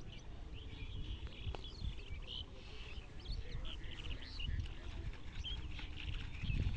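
Outdoor birds chirping and calling in many short, quick notes, over a steady low rumble.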